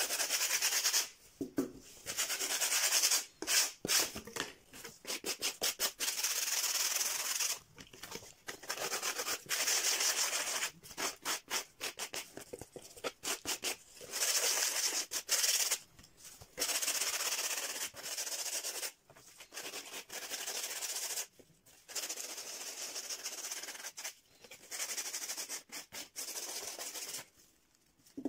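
Sandpaper rubbed by hand over dried putty on cardboard panels, in runs of quick back-and-forth strokes broken by short pauses.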